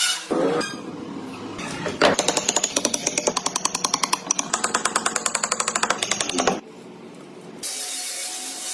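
Power tool working wood, with a rapid, even pulsing of about nine strokes a second that stops suddenly a little past the middle, then a steady hiss near the end.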